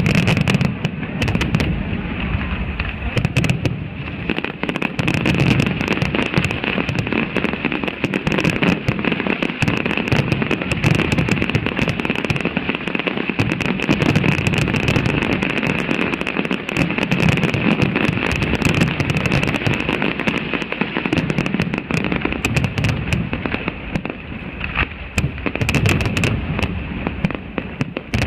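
Fireworks display: a dense, continuous barrage of bangs and crackling shells with no let-up.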